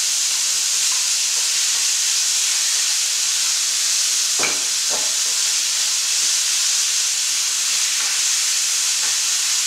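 Chicken thighs sizzling steadily in bacon fat in a stainless steel frying pan as they sauté, with two short knocks about halfway through.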